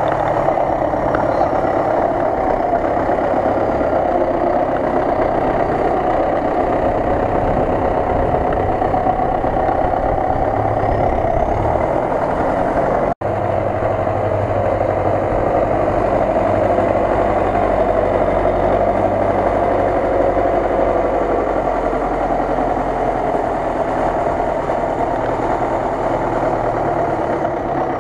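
MTZ Belarus tractor's diesel engine running steadily as the tractor churns through deep mud, with an abrupt break about halfway where the sound cuts and resumes.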